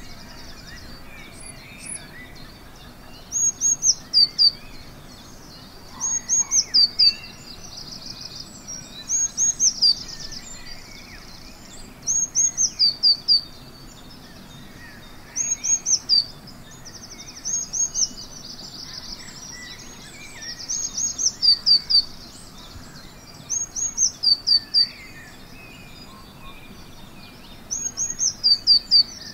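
Dawn chorus: one close songbird repeats a short phrase of high, quickly falling notes about every three seconds, with fainter birds calling behind it.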